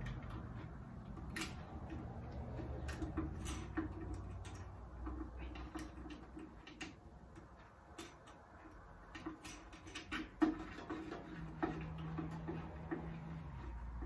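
Scattered light clicks and ticks from hands fitting a red push-in air hose and its threaded collar onto a plasma cutter's air pressure regulator, the sharpest click about ten seconds in, over a faint low hum.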